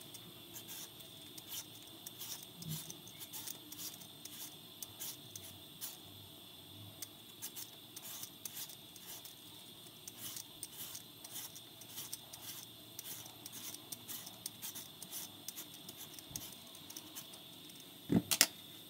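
Metal Y-shaped vegetable peeler scraping down a raw sweet potato in short, quick strokes, taking the skin off in strips. Near the end, a couple of louder knocks as the peeled sweet potato is set down on the countertop.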